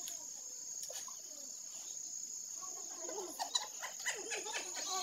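Crickets trilling in a steady, high, unbroken chorus, with people's voices joining in over it during the last two seconds.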